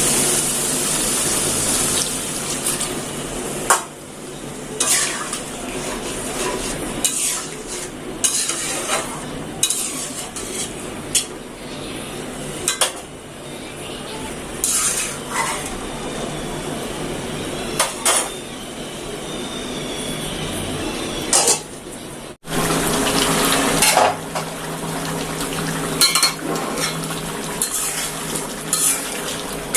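Metal spoon scraping and clinking against a cooking pan as food is stirred, over steady sizzling, with a short break about two-thirds of the way through.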